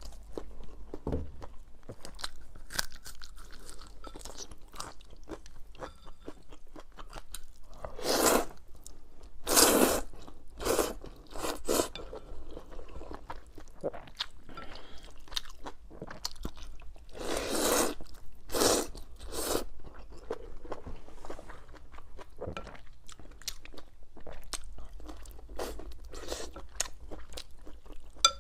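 Close-miked eating of spicy rice noodles with tofu skin: steady chewing with many small wet clicks, and a handful of louder bursts of eating noise in two clusters, one about a third of the way in and one past the middle.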